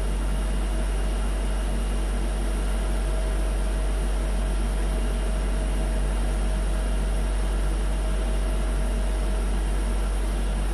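Steady low hum under a constant even hiss, with a faint steady whine above it.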